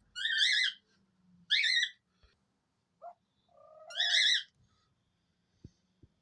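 A bird gives three high, wavering chirping calls, with a lower wavering note running into the last one. Two light taps follow near the end.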